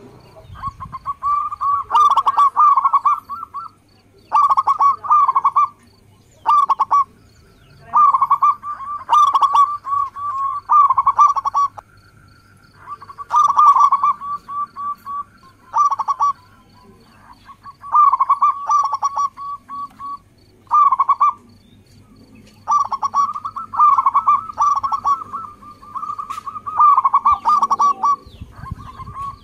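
Zebra dove (local perkutut) singing: repeated phrases of rapid, stuttering cooing notes, a dozen or so bursts with short pauses between them.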